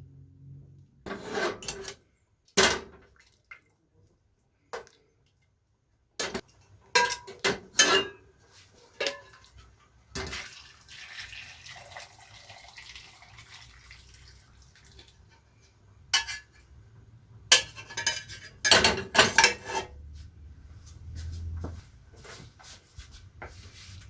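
Kitchenware clinking and knocking: metal utensils striking pots and dishes in irregular clusters of clatter. The loudest run of knocks comes a little past the middle, and a softer stretch of hissing noise sits just before it.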